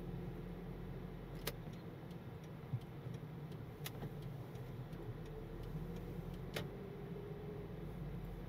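Car driving along, a steady low rumble of road and engine noise, with three sharp clicks and a few fainter ticks spread through it.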